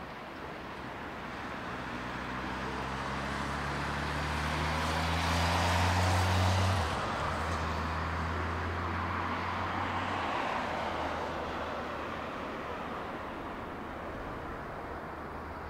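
Jet engines of a Boeing 787-8 airliner on final approach, the noise swelling to a peak about six seconds in and then fading as it passes. A low hum in it drops in pitch near the peak.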